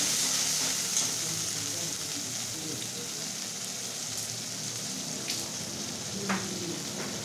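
Thick spiced nut and poppy-seed masala paste sizzling in oil in a kadai, stirred with a metal spatula at first and then left to fry, with a few brief clicks. The oil is separating around the edges, the sign that the masala is well fried.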